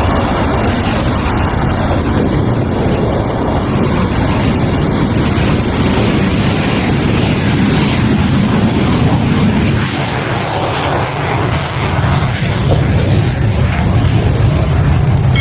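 F-16 fighter jet's engine at takeoff power as the jet rolls down the runway and lifts off: a loud, steady rush of jet noise with a deep low end.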